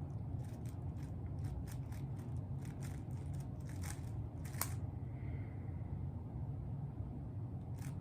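Plastic Rubik's cube layers clicking as they are turned by hand: a quick, irregular run of about a dozen snaps and clicks, then one more near the end.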